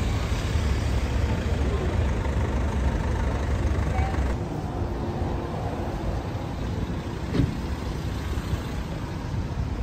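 Crowded street ambience: a steady low rumble with people talking in the background, and a single click about seven seconds in.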